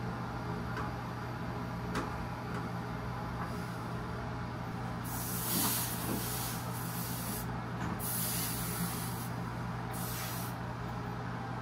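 A brazing torch flame runs steadily on a copper-to-TXV joint. From about five seconds in come several short bursts of steam hissing as a wet rag quenches the hot, freshly brazed joint. A steady low hum runs underneath.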